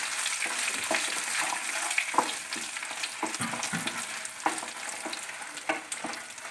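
Dried red chillies frying with fenugreek and split mustard seeds in hot sesame oil in a non-stick kadai: a steady sizzle, with frequent scrapes and clicks from a wooden spatula stirring them. The sizzle slowly fades.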